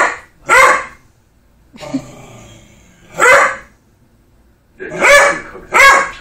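A dog barking in single barks: two close together at the start, one about three seconds in, and two more near the end.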